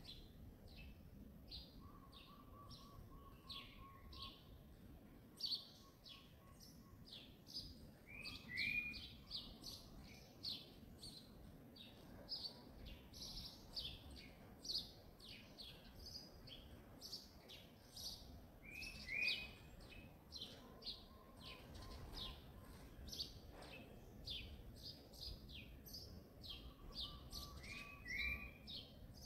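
Birds chirping in the background: many short, high chirps overlapping throughout, with a two-note call that recurs about every ten seconds.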